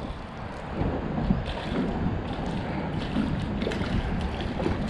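Wind buffeting the microphone over water lapping against a small boat's hull, with a few faint clicks and knocks.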